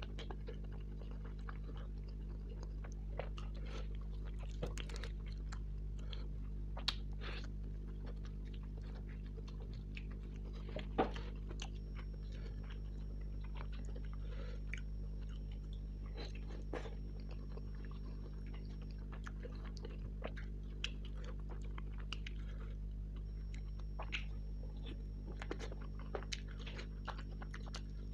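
Close-up chewing and biting of tandoori chicken: irregular wet clicks and crunches as the meat is torn and chewed, with one louder crack about eleven seconds in, over a steady low hum.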